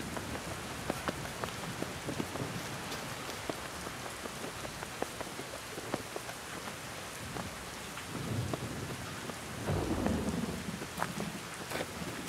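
Steady rain falling, with many sharp drops striking close by. Low rumbles swell up about eight seconds in and again around ten seconds in.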